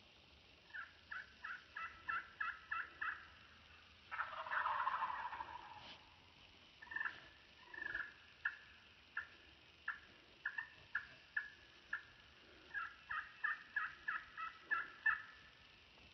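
Wild turkey calling: runs of short yelps at about three a second, broken by a rattling gobble of about two seconds that starts about four seconds in and is the loudest sound.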